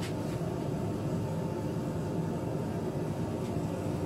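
Steady roar of a running forge filling the workshop, even and unbroken, with a light click right at the start.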